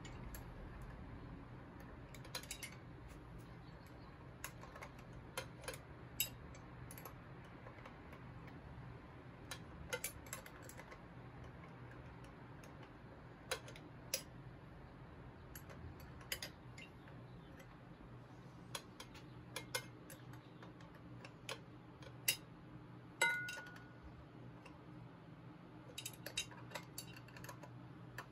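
Scattered small metallic clicks and taps of hand tools and hardware against the S&S Super E carburetor's air cleaner as it is fitted. One short metallic ping near the end is the loudest sound.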